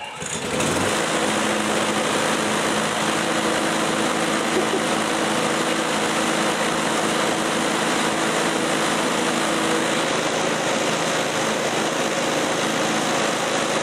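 Walk-behind gasoline lawn mower engine pull-started, catching within the first second and then running steadily, fuelled on homemade ethanol in place of gasoline.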